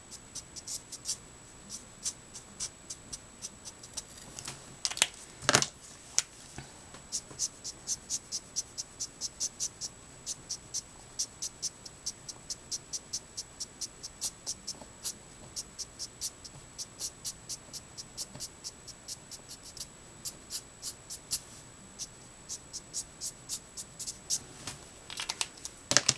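Felt tip of an alcohol marker (Letraset Promarker) scratching across card in quick short flicking strokes, about two to three a second. One louder knock comes about five seconds in, and a faint steady high whine runs underneath.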